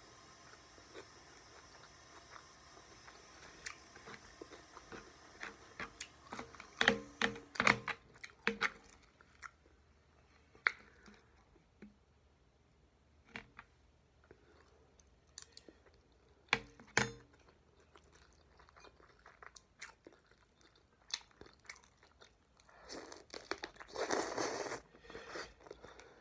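Close-up mouth sounds of a person eating rice, sausage and cucumber: chewing with scattered sharp crunches and smacks, a busy cluster about a quarter of the way in, and a longer, louder noisy stretch near the end.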